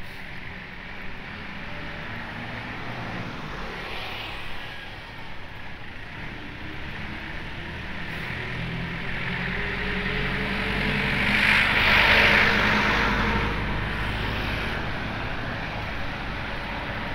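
Street traffic noise with a passing engine that swells slowly to a peak about twelve seconds in and then fades, its pitch sliding down as it goes by.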